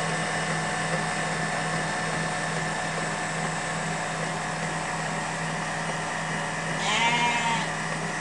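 Kenwood stand mixer running steadily, its beater churning cream in a steel bowl, with a constant motor hum. About seven seconds in comes a short, high call that rises and then falls in pitch.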